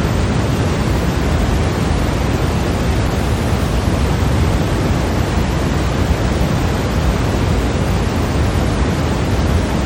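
Steady, unchanging white noise: an even, rushing hiss with more weight in the low end, with no other sound in it.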